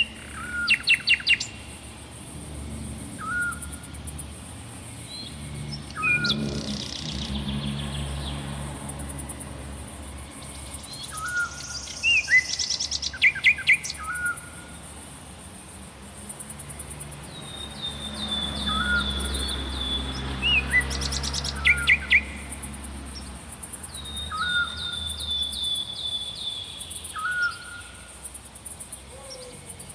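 Several songbirds singing in a forest: short upward-hooked whistles repeated every few seconds, a few loud rapid runs of sharp notes, and twice a falling trill of quick notes, over a low steady rumble.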